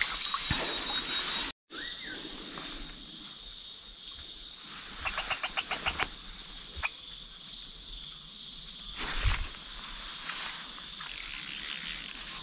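Insects shrilling in a steady high-pitched chorus that swells and fades in regular pulses, with a quick run of about eight clicks about five seconds in and a single thump about nine seconds in.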